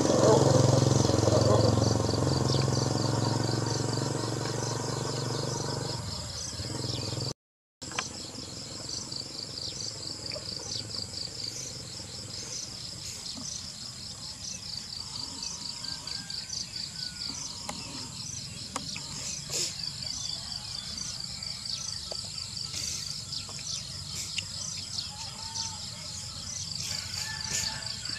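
A small motorcycle engine running as the bike rides away, fading over the first six seconds. After a brief break, an insect chirps in a steady, rapid high-pitched rhythm, with a few faint bird chirps.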